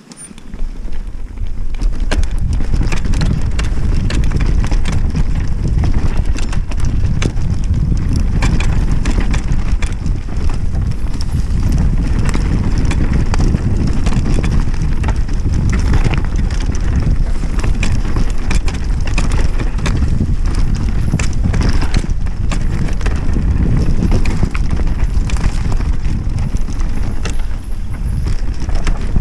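Mountain bike riding fast down a dirt forest trail: a heavy rumble of wind on the camera microphone, with continual rattles and knocks from the bike and tyres over the rough ground. The noise comes up within the first second.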